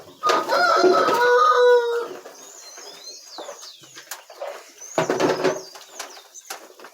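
A rooster crows once, a long call of about a second and a half near the start, followed by small birds chirping high and thin, and a shorter call about five seconds in.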